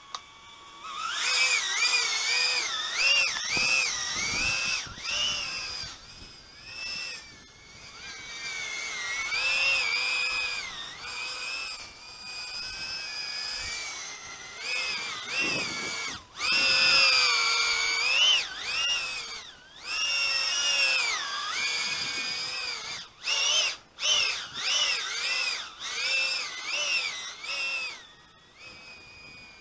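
Eachine Aurora 90 micro quadcopter's motors whining as picked up by its onboard camera. The pitch rises and falls constantly with throttle, with a few brief dips, and the motors cut out near the end.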